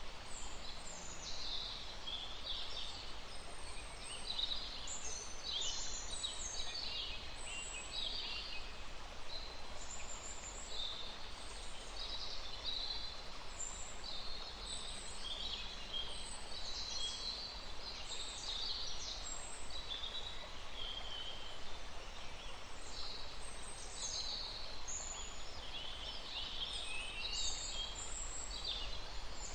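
Many small birds chirping and singing at once, short overlapping high calls and trills following each other without pause, over a steady low background hiss.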